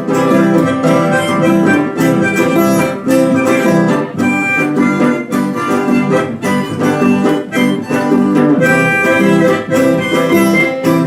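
Harmonica playing a hymn melody in held notes over a steadily strummed acoustic guitar, an instrumental passage with no singing.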